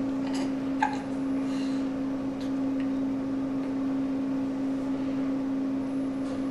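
A steady low hum at one pitch, with a short soft click about a second in and a few fainter ones later.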